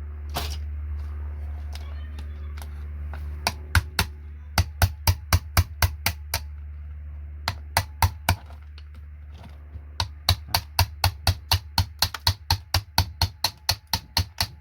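A steady low hum with runs of sharp clicks in a quick, even rhythm of about three to four a second, starting a few seconds in and running most thickly near the end.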